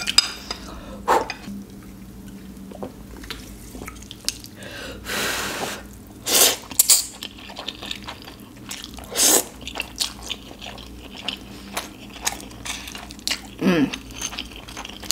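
Instant ramen noodles slurped up close to the microphone in several wet pulls, the longest lasting about a second, with smaller wet mouth noises and light clicks of chopsticks against the bowls and plate in between.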